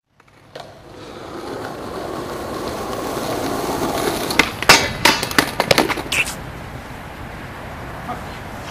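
Skateboard wheels rolling on concrete, growing louder as the board approaches, then a quick run of sharp clacks and clatters about four to six seconds in as the board is popped and comes down. The board ends up upside down on the ground, so the clatter is a bailed trick.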